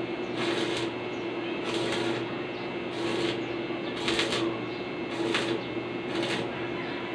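Stick (arc) welding a barrel bolt onto a metal gate: the arc crackles in short bursts about once a second, over a steady low hum.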